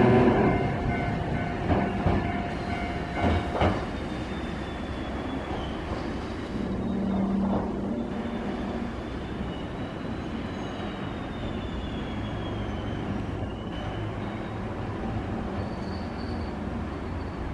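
Hankai Tramway Mo 161-type tram No. 162 running on street track. It starts loud and fades as it draws away, with a few sharp wheel clacks over rail joints in the first few seconds. Then comes a faint, thin, high squeal from the wheels that slowly bends in pitch as the tram works round a curve.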